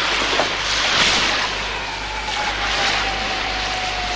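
Air hissing out of a slashed inflatable boat: a steady rush that swells a few times, with a thin whistle that slowly falls in pitch.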